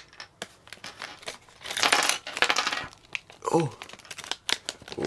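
A plastic LEGO minifigure blind bag crinkling as it is handled, loudest for about a second near the middle. Around it come many small, sharp clicks of little plastic pieces and packaging being handled on a table.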